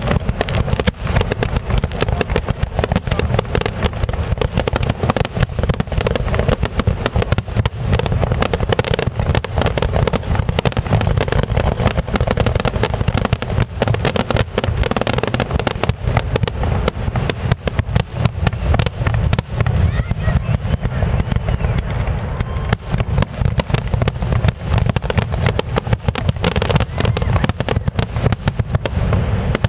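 Fireworks finale: a rapid, unbroken barrage of aerial shell bursts, the bangs overlapping one another.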